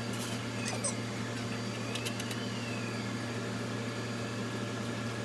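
Steady low mechanical hum, like a kitchen appliance or fan running, with a few faint clicks.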